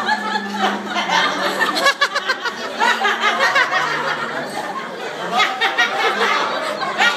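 A group of people laughing and talking over one another, with a burst of quick laughter about two seconds in.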